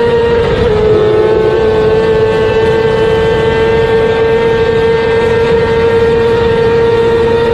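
Motorcycle engine held at steady high revs, a constant high-pitched drone, with wind rush underneath.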